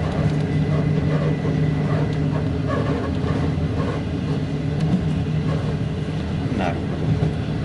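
Passenger train running on after leaving a station: a steady rumble of the wheels on the rails with a constant low hum underneath and a few faint clicks.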